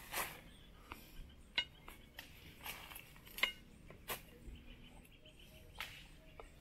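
Faint, scattered clinks and knocks of a utensil against a cooking pot as the chicken is stirred, two of them louder and ringing briefly.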